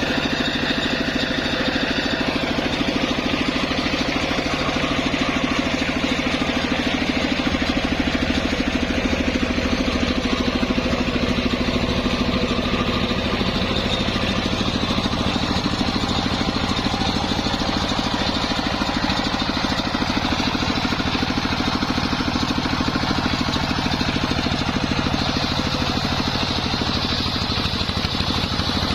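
Circular sawmill machine running steadily, a continuous machine drone with a steady pitch.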